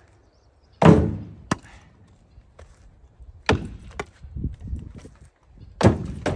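Split firewood thrown into a pickup truck's bed, landing on the load with a loud wooden thud about a second in and a sharper knock just after. More knocks of wood on wood follow at about three and a half and six seconds as further pieces are picked up with a wood hook and tossed.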